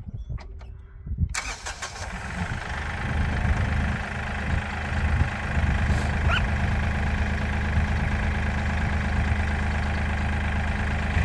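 Bobcat CT2035 compact tractor's diesel engine being started about a second in, then running at a steady idle.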